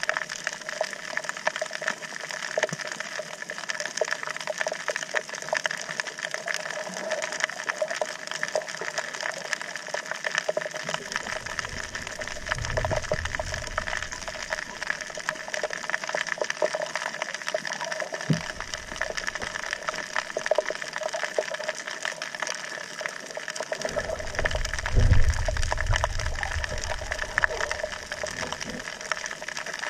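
Underwater reef ambience heard through an action camera's waterproof housing: a steady hiss full of fine crackling clicks. Low rumbles of water moving past the housing come in twice, about eleven seconds in and again near the end.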